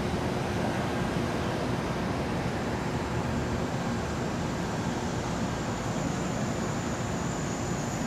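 Steady vehicle and traffic noise with no distinct events. A faint high whine comes in about halfway through.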